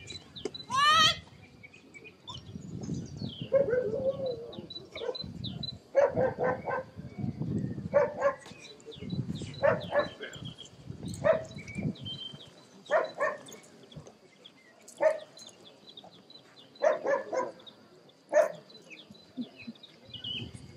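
German Shepherd Dog barking repeatedly in short, loud barks, about one every second or two, with a brief rising squeal about a second in.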